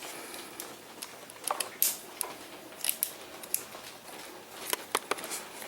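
Irregular small metallic clicks and taps from hand work on the lower mounting bracket of an e-bike control unit as it is fitted and screwed down on the seat post.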